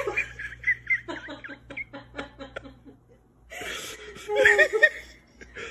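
A person laughing in a run of short chuckles, a brief pause about three seconds in, then a louder burst of higher-pitched laughter.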